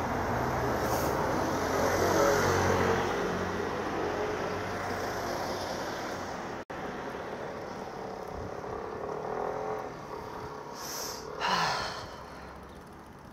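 Road traffic: cars passing, their engine notes rising and falling around two seconds in and again near ten seconds. The sound cuts out for an instant about seven seconds in.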